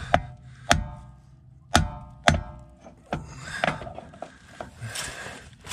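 Hammer blows on a car's rear driveshaft flange at the differential pinion flange, knocking the stuck driveshaft loose: four hard metallic strikes in the first two and a half seconds, each ringing briefly, then lighter knocks.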